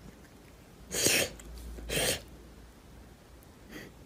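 A cat sneezing twice, about a second apart, with a fainter third sound near the end.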